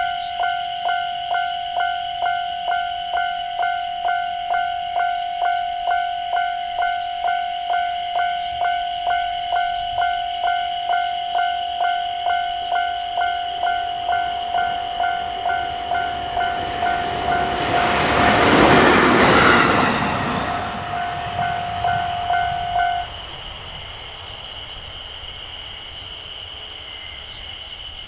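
Japanese level-crossing warning bell ringing a steady electronic ding a little over twice a second. About two-thirds of the way in, a train passes loudly over the crossing. The bell stops a few seconds later, leaving only quiet outdoor background.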